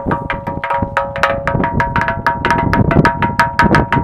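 Percussive music: quick, even strikes about six or seven a second over a held chord of ringing tones, starting and stopping abruptly.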